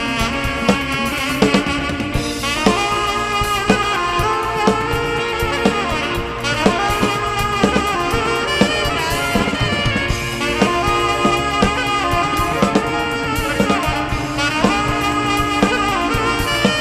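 Live band music: a saxophone plays a melody of held and gliding notes over a steady rhythm from a drum kit, bass guitar and a hand-played mridangam, the South Indian two-headed barrel drum.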